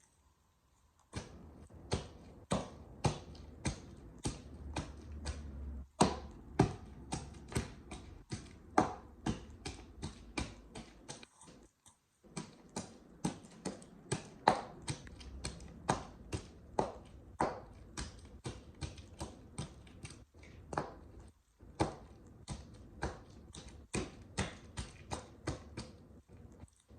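High-heeled boots tapping and stepping on a hard surface in a steady run of sharp clicks, about two a second, with short pauses partway through.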